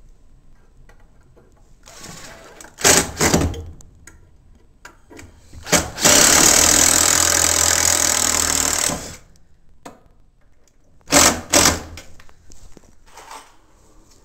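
A handheld power tool, used on the new wooden floor supports, running in two short bursts, then one steady run of about three seconds, then two more short bursts near the end.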